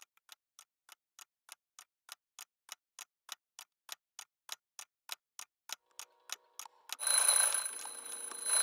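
A clock ticking about three times a second, growing steadily louder, then an alarm going off about seven seconds in: a much louder sound with several steady high tones.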